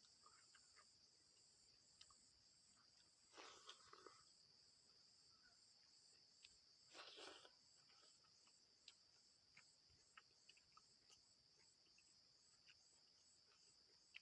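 Faint, steady high chirring of crickets, pulsing about twice a second. Scattered soft clicks and two short rustles, about a quarter and about half of the way through, sound over it.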